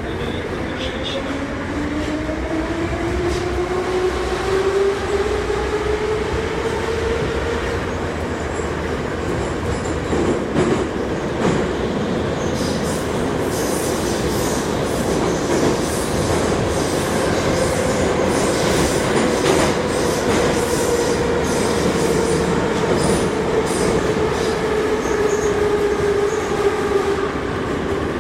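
81-717/714 metro train running, its traction motor whine rising in pitch for the first several seconds as the train picks up speed, then holding steady at speed. Wheel and rail noise runs underneath, with scattered clicks.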